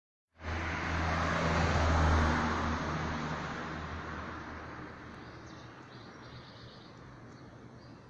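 A motor vehicle passes on the street, its engine hum and tyre noise swelling to a peak about two seconds in and then fading away. Faint bird chirps come in over the last few seconds.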